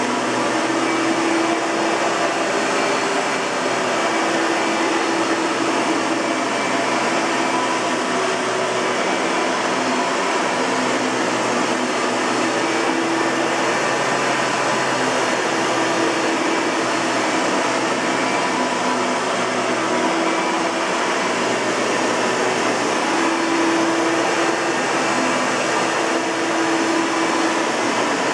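1997 Hoover TurboPower 4000 Elite upright vacuum cleaner running steadily: a constant rushing motor-and-fan noise with a low hum that wavers slightly.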